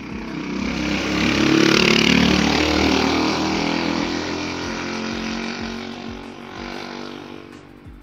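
A motor vehicle driving past: its engine sound swells to a peak about two seconds in, then fades away over the next five seconds.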